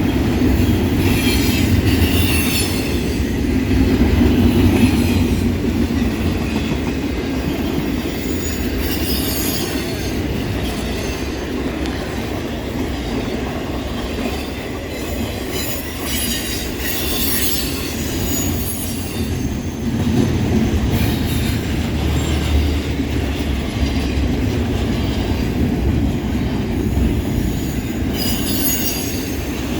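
Freight train cars rolling past, steel wheels on the rails, with high-pitched wheel squeal that comes and goes several times.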